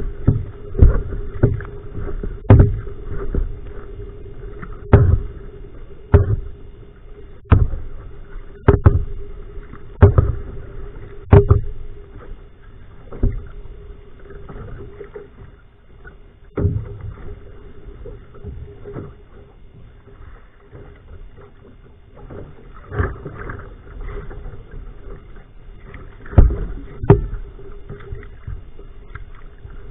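Paddle strokes from a va'a (outrigger canoe): a sharp splash at each blade catch about every 1.3 s for roughly the first twelve seconds, then softer and more irregular, with water noise between strokes.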